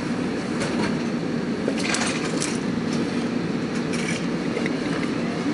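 Interior noise of a SEPTA M-4 Market-Frankford Line subway car leaving a station: a steady running rumble of wheels and motors, with a few short clicks and rattles from the car body.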